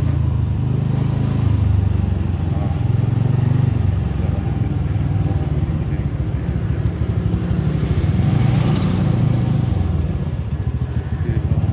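Two-wheeler's engine running while riding along a street, with wind rumbling unevenly on the microphone.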